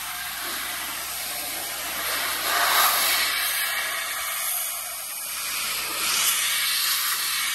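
Handheld forced-air blower used as a vehicle dryer, blowing a steady rush of air to drive rinse water off a golf cart's body panel. It swells louder about three seconds in and again near the end.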